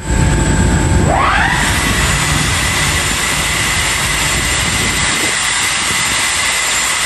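Boeing 747-400F leading edge flaps extending pneumatically on the ground: a loud, steady hiss of bleed air blowing into the pneumatic drive motor. A whine rises about a second in and then holds steady.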